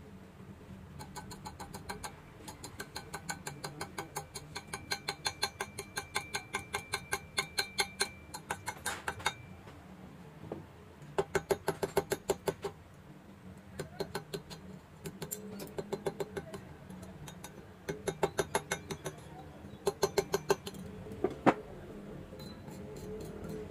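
Runs of rapid sharp ticks, about three to four a second: one long run lasting several seconds, then shorter bursts later on.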